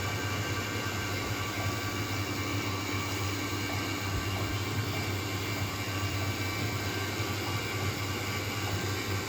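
Vacuum pump running steadily during a vacuum leak test, a low even hum under a constant hiss.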